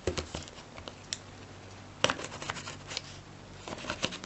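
Packaging being handled by hand: scattered taps, clicks and scrapes, with a cluster of clicks about two seconds in and more near the end.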